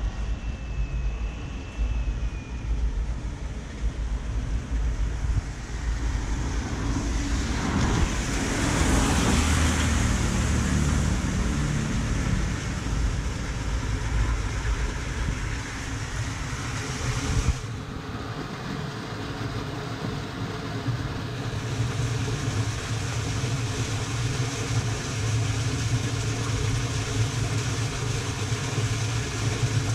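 Road traffic on a wet road: a vehicle passes with a rising and falling tyre hiss, loudest about nine seconds in, over a steady low rumble.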